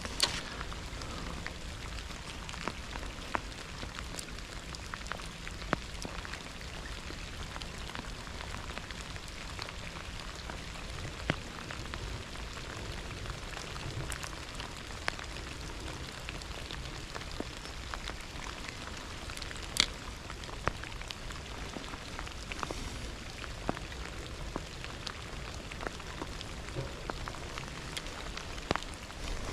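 Steady rain falling, with scattered sharp drop hits standing out every second or so; the loudest comes about twenty seconds in.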